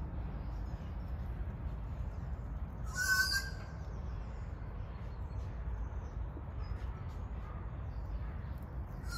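A kea calls once, a short harsh cry about three seconds in, with another starting at the very end, over a steady low rumble.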